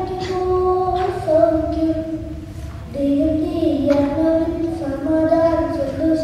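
A boy singing a Malayalam song solo into a microphone, holding long notes that step up and down in pitch, with short breaths between phrases.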